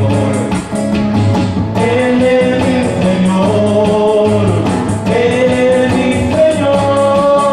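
Live band playing an upbeat Catholic praise song, with drums played on electronic drum pads keeping a steady beat under a sustained melody.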